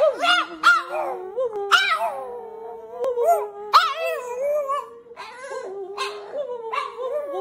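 Boston terrier howling in a run of wavering calls that rise and fall, restarting every second or so over a steady held tone.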